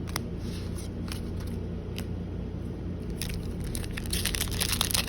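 Foil booster pack wrapper crinkling and tearing as it is handled and opened, with a couple of sharp clicks first and dense crackling from about three seconds in, over a steady low hum.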